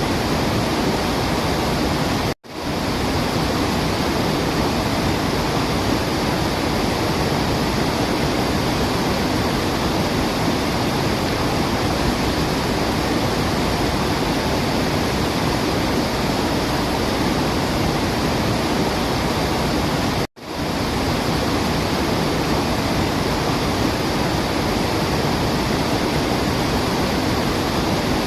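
Waterfall: steady, even rushing of falling water. It cuts out for a split second twice, about two seconds in and near the twentieth second, each time coming straight back.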